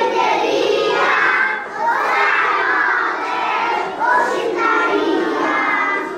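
A group of young children singing out loudly together in chorus, close to shouting. The song comes in short phrases, with brief breaks about one and a half seconds and four seconds in.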